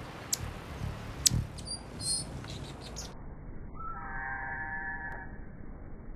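Anna's hummingbirds hovering and squabbling at a feeder: a low wing hum with two sharp clicks and short, high squeaky chirps in the first couple of seconds. After a cut, a steady buzz of several pitches runs for about a second and a half.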